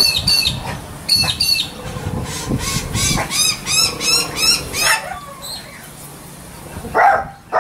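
A sulphur-crested cockatoo calling in short, high rising-and-falling calls, a quick run of about three a second in the middle. Near the end come two louder, lower bark-like calls.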